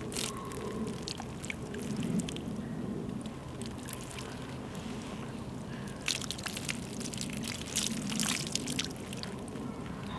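Water trickling from a small steel mug into cupped hands and splashing down as the hands are rinsed clean of blood and debris. A few sharp clicks come in the second half.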